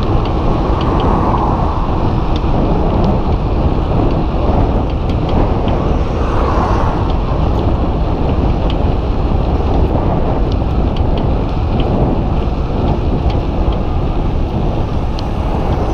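Wind buffeting the camera's microphone while riding a bicycle, a loud, steady rumble, with faint light ticks scattered through it.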